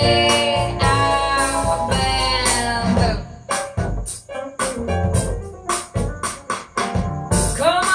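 Music: a song passage with sustained keyboard chords for about the first three seconds, then a steady beat of drum hits, with a sliding tone near the end.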